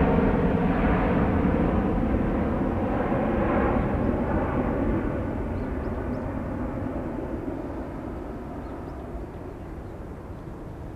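Jet engines of an Airbus A330-300, General Electric CF6-80E1 turbofans, at takeoff/climb thrust as the airliner climbs away, fading steadily; the higher part of the engine noise dies away first, leaving a low rumble.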